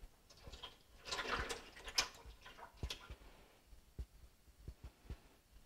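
Four-stroke motorcycle engine oil pouring in a thin stream from a plastic bottle into a pot already part-filled with oil: a faint splashing, loudest about a second in, with scattered small ticks.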